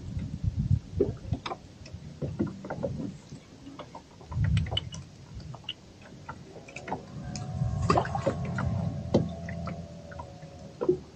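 Scattered knocks and clicks of gear being handled in a small boat, with low rumbles. A steady droning tone comes in about six and a half seconds in and fades out about four seconds later.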